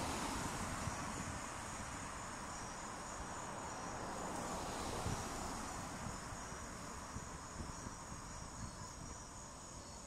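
Crickets chirring steadily in the night, a continuous high trill over a low background rumble that slowly fades.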